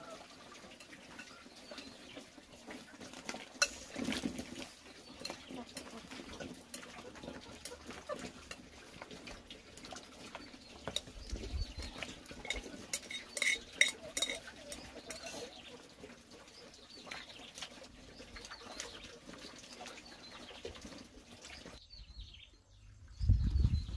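Clinks and knocks of chopsticks and a bowl against a large aluminium cooking pot, over the soft bubbling of the broth, as cubed pumpkin is tipped in; the loudest clatter comes about halfway through. Near the end there is a low rumble.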